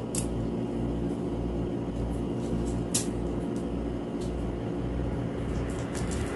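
A steady low hum with a few sharp light clicks, one near the start and one about three seconds in.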